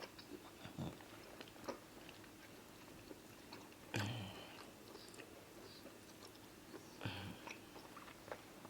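Faint chewing and wet mouth sounds of people eating amala and egusi soup with fish: scattered small clicks and smacks, with two louder mouth sounds about four seconds in and near seven seconds.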